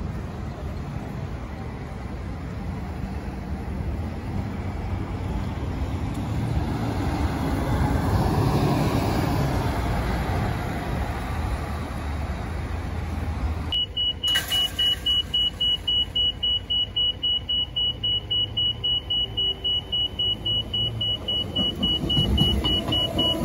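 A diesel city bus pulls away along the road amid light traffic. About halfway through, a railway crossing warning alarm starts: a single high beep repeating about three times a second. Near the end an electric suburban train rumbles in.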